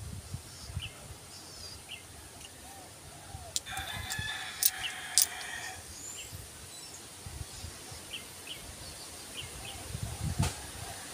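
A rooster crows once, about four seconds in, one call lasting about two seconds. Two sharp clicks fall during the crow, and small birds chirp faintly in the background.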